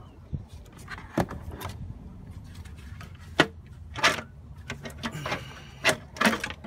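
Irregular clunks, clicks and scrapes of parts being handled in an engine bay as the intake manifold is worked loose and lifted, with one sharper knock near the middle.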